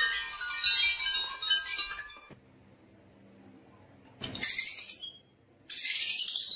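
Many glass marbles clattering and clinking together on a marble run, a dense ringing jangle that stops suddenly about two seconds in. Later there are two short hissy rushes, one near the middle and one near the end, which cuts off sharply.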